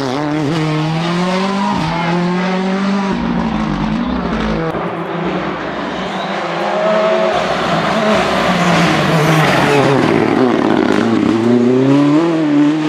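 Ford Fiesta R5 rally car's turbocharged four-cylinder engine revving hard at full race pace, its pitch repeatedly climbing and dropping through gear changes and corners. It gets louder about halfway through.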